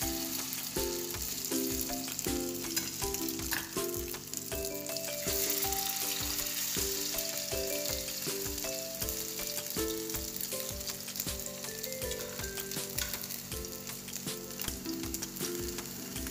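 Slices of chicken luncheon meat sizzling steadily as they fry in hot oil in a pan, with a tune and a steady beat underneath.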